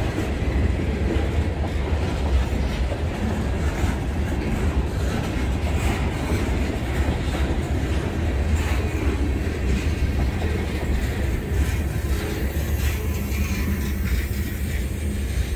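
Freight cars of a Norfolk Southern manifest train rolling past: a steady low rumble with the clickety-clack of steel wheels over rail joints. The clicking thins out near the end as the last cars go by.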